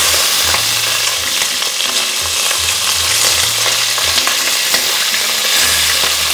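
Boiled chicken wings sizzling in shallow hot oil in a stainless steel pot, a steady crackling hiss as the skin sears crisp. Metal tongs turning the wings over give light clicks against the pot.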